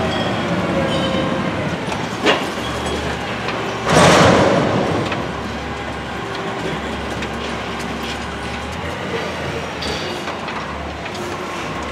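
Amrep ADR recycling truck running with its hydraulics working as the raised hopper lowers, with a sharp clank about two seconds in and a loud burst of rushing noise about four seconds in.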